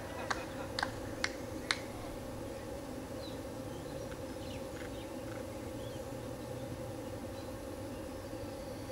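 Open-air ambience with a steady low hum. A run of sharp, evenly spaced clicks comes about two a second through the first two seconds, then a few faint high chirps.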